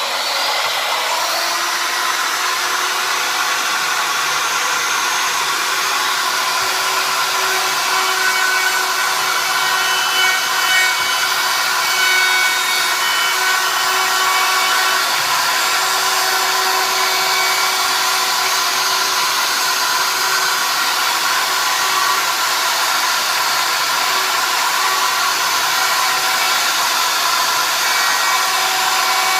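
Electric router spinning up and then running steadily at speed with a high whine, cutting a hinge mortise into the edge of a wooden door, with small swells in level as it bites into the wood.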